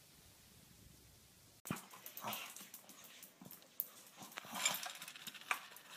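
A dog making short, irregular sounds that start suddenly about two seconds in, after near silence.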